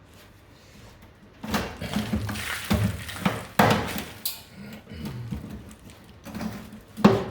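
Hand tools scraping and knocking at rusted car body metal to remove corroded material, in irregular scrapes and clanks starting about a second and a half in.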